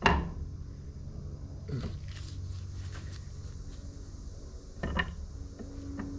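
Two sharp metal clanks about five seconds apart, each ringing briefly, with a softer knock between them, as hand tools and engine parts are handled during an engine teardown.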